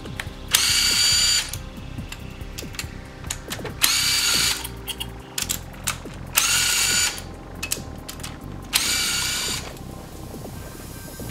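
Power driver on a long socket extension spinning out the loosened cylinder head bolts of a Toyota 7AFE engine: four short runs of a steady motor whine, each under a second, with metallic clicks and rattles between them as the tool is moved from bolt to bolt.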